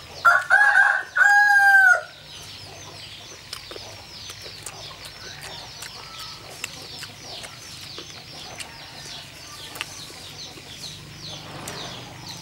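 A rooster crowing once, loud, over the first two seconds in broken segments, ending on a long held note that drops away. A faint, rapid, high-pitched chirring runs beneath it.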